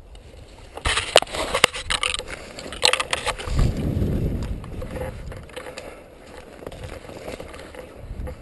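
Rustling and crunching with several sharp snaps about a second in, as of someone moving through dry brush and leaves, followed by a brief low rumble a few seconds in.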